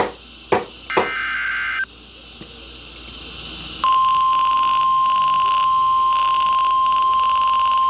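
NOAA Weather Radio alert signals heard through a radio receiver. A buzzy burst of SAME digital data tones ends about two seconds in, with a couple of sharp clicks near the start. Then, about four seconds in, the steady 1050 Hz warning alarm tone starts abruptly and holds, the signal that a new warning is about to be read.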